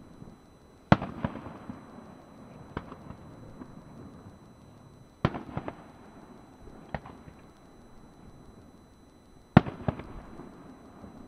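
Aerial fireworks shells bursting: three loud bangs about four seconds apart, each followed closely by one or two smaller bangs, with the sound ringing on after each.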